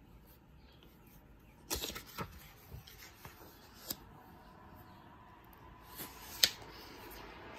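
Pages of a large hardcover art book being turned by hand: short paper rustles about two seconds in and near four seconds, then a crisp page snap about six and a half seconds in, the loudest sound.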